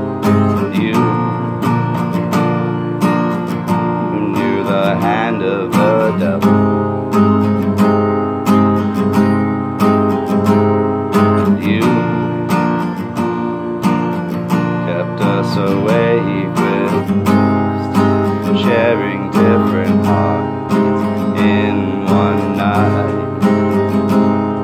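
Steel-string acoustic guitar with a capo, strummed steadily in an instrumental passage of a song, the chords ringing on with a regular strumming pulse.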